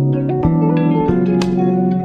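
Background music: a plucked-string instrumental over a held bass note, with new notes struck about every half second.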